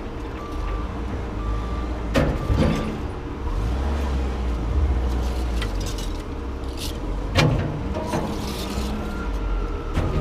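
A vehicle engine running steadily, with several sharp knocks, two close together about two seconds in, another past seven seconds and one at the end.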